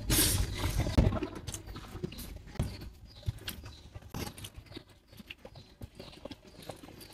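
A person eating: chewing with scattered short clicks and smacks, louder and noisier in the first second or so.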